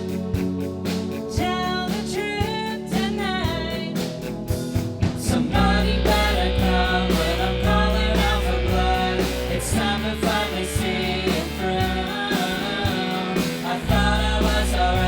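A rock band playing live, with singing over electric guitar. A heavy bass low end comes in about five seconds in, drops out briefly near the end, then comes back.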